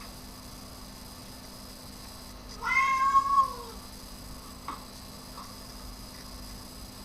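A cat meowing once: a single drawn-out meow about a second long, its pitch dropping at the end.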